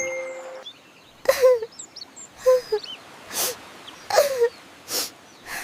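A cartoon character sobbing: short whimpering wails that drop in pitch, alternating with breathy gasping sobs. A held music note fades out about half a second in.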